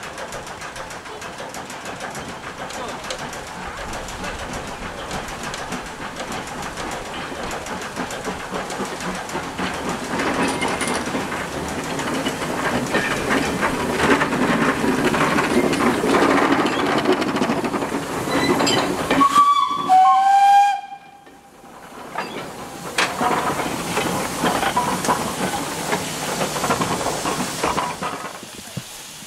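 Industrial steam tank engines working a short train past, a steady steam and rail noise building over the first seventeen seconds. About twenty seconds in the locomotive's steam whistle sounds, a high note then a lower one, the loudest sound here, and then cuts off suddenly.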